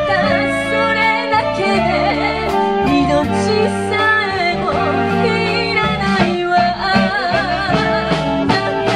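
A woman singing a slow Japanese ballad with vibrato into a microphone, backed by a live band of electric guitars, drums, saxophones and keyboard.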